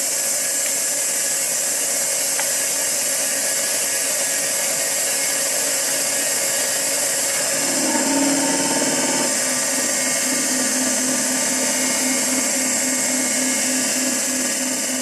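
Cylinder-boring machine running its boring bar through a cylinder of a Ford Model A cast-iron block on the final pass to 30 thousandths oversize: a steady high hiss and whine. A lower pulsing hum joins about eight seconds in.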